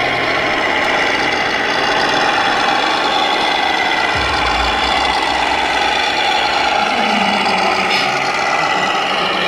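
Engine-sound module of a radio-controlled MAN truck playing a diesel engine at idle through its speaker, steady, with a brief low rumble about four seconds in.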